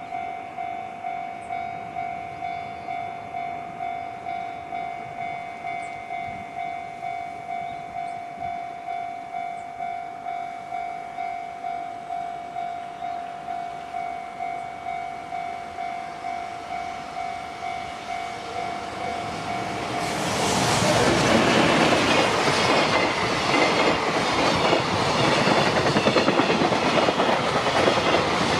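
Japanese level-crossing warning bell ringing in a steady, even rhythm of about one and a half dings a second. About two-thirds of the way in, a JR Freight freight train arrives and passes, and its wagons clatter over the rail joints loudly enough to drown out the bell.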